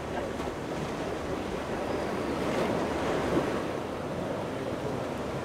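Ocean surf breaking and washing on a beach: a steady rushing wash that swells a little about halfway through.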